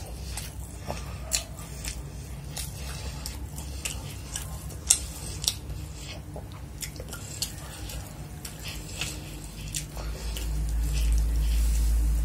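Close-miked chewing of a mouthful of chicken and fried rice, with repeated wet mouth clicks and smacks, and fingers working through rice on a ceramic plate. A steady low rumble rises about ten seconds in and becomes the loudest sound.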